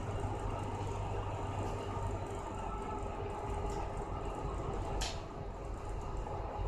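Steady drone of an ASD tug's twin stern diesel engines heard inside the wheelhouse, with a low hum under it. A single short click about five seconds in.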